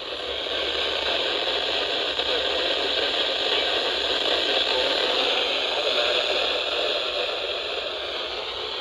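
Weather radio receiver static: a steady, rough crackling hiss with no voice or alert tone on the channel.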